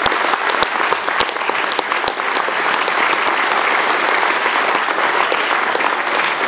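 Audience applauding: many hands clapping together in a dense, steady patter.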